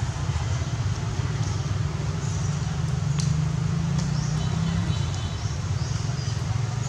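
Steady low rumble, with faint short high-pitched chirps now and then and a brief click about three seconds in.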